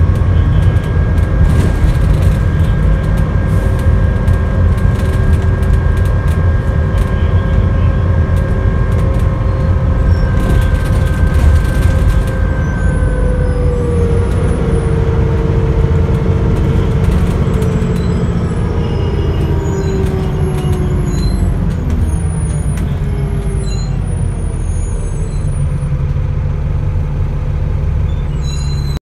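Dennis Trident double-decker bus's diesel engine and driveline heard from inside the lower deck: a loud low drone with a steady whine. About halfway through, the whine slowly falls in pitch as the bus slows down.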